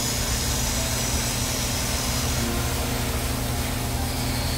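Heavy machinery engine running steadily: a low, even drone with a hiss above it.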